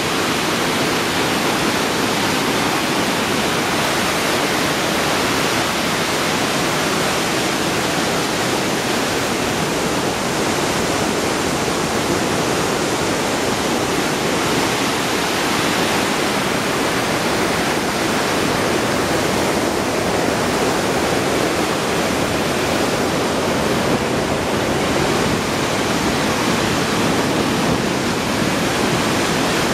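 Magog River whitewater rushing through the gorge: a loud, steady wash of churning water.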